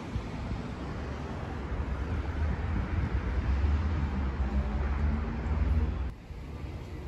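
Street traffic: a motor vehicle passing close, its low rumble with a steady engine hum growing louder over a few seconds, then breaking off suddenly about six seconds in.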